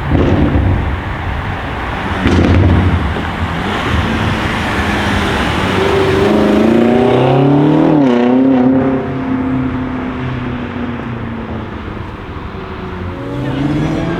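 Stage 2 tuned BMW M5 F90 Competition's twin-turbo V8 engine and exhaust, loud, accelerating: a couple of loud bursts in the first few seconds, then the engine note climbs, drops about eight seconds in, holds, and climbs again near the end.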